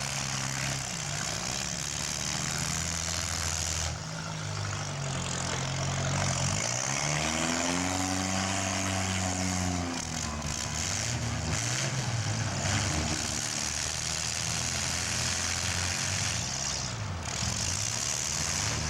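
Demolition derby compact car engines running and revving, their pitch rising and falling in long sweeps, over a steady hiss.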